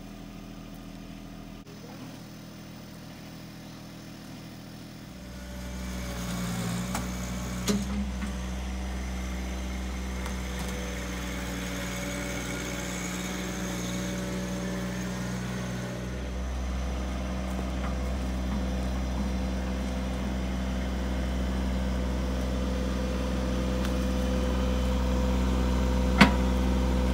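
John Deere 1023E compact tractor's three-cylinder diesel engine running steadily, getting louder about five seconds in as it works the ground with a rear box blade. A sharp knock near the end.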